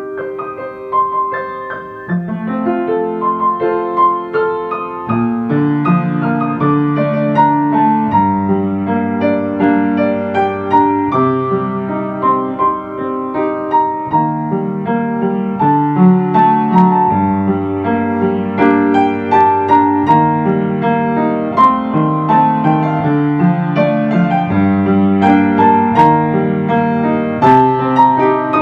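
Piano music: a melody over sustained chords, with the bass note changing every few seconds. The playing grows fuller about two seconds in.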